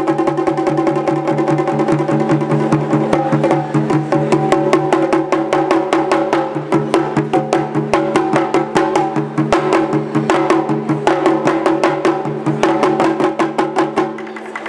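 Japanese taiko drumming: fast, crisp stick strokes on several drums over a steady low tone, the playing stopping shortly before the end.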